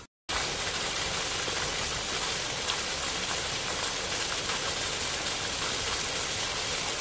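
Heavy thunderstorm roof runoff gushing out of the end of a downspout and splashing onto the ground: a steady, even rush of water.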